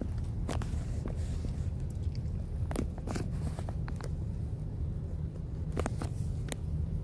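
Steady low rumble of a car moving slowly, with scattered sharp clicks and crunches.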